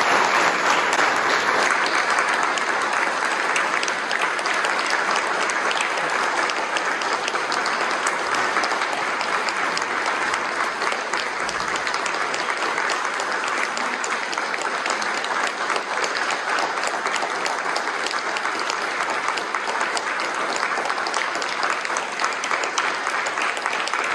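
An audience applauding steadily after a lecture, a dense sustained clapping that eases only slightly in loudness.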